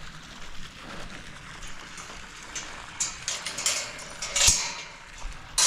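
Footsteps of a person walking outdoors, a run of uneven crunching steps starting about three seconds in, with one sharp click a little later.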